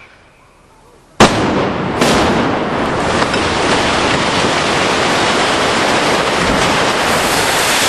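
Explosive demolition of a high-rise block: a sharp blast about a second in, a second one just after, then a long, loud rush of noise as the building comes down and its rubble falls.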